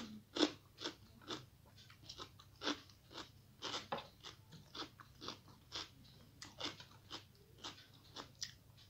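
Close-miked mouth chewing of crunchy food: a steady run of short, crisp crunches, about two a second.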